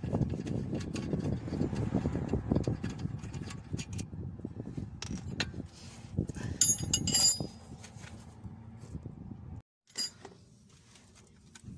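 Metal tools and parts being handled during a brake job, with dense low clattering and clicks at first and a short burst of ringing metallic clinks about seven seconds in.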